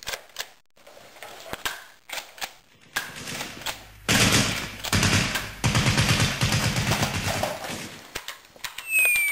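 Machine-gun fire: scattered single shots at first, then a dense rapid stream of rounds for several seconds. Near the end a high whistle starts and falls steadily in pitch.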